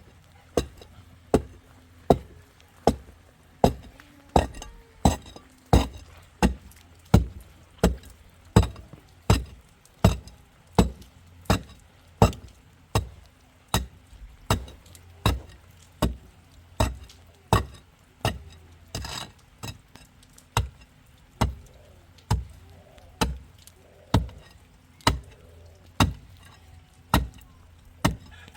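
Repeated sharp, heavy strikes at a steady pace, about three every two seconds, with a short break and a brief noisy rush about two-thirds of the way through.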